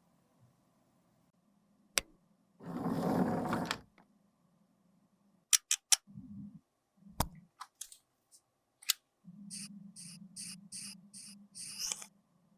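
Close-up handling of makeup and small tools: several sharp clicks and taps, a rustling scrape about three seconds in, and near the end a quick run of about six short strokes, like snipping or scraping.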